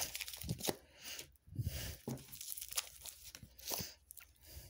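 A deck of tarot cards being shuffled by hand: a string of irregular papery swishes and light clicks as the cards slide and tap against each other.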